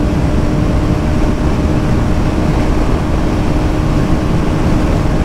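KTM Duke 200's single-cylinder engine running at a steady highway cruising speed, its note held even, under heavy wind rush on the microphone.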